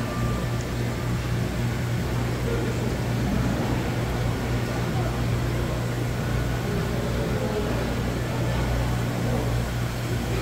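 Steady low machine hum with faint, indistinct voices in the background.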